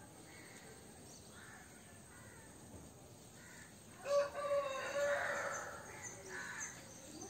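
A rooster crows once about four seconds in, one loud drawn-out call of about a second and a half, over a faint outdoor background with scattered bird calls.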